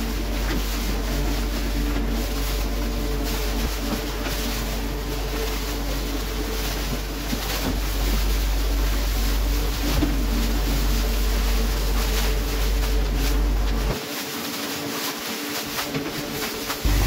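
Fishing boat's engine running steadily while a deck hose sprays water, a constant hiss over a low hum. The deep rumble drops away about three-quarters of the way through.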